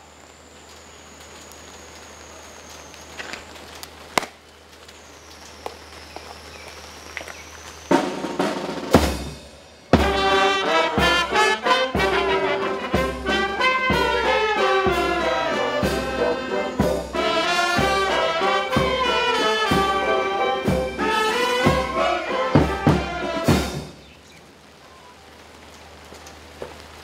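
Military brass band playing a march, brass over a regular drum beat. It starts about eight seconds in after a quiet steady hiss and stops a few seconds before the end.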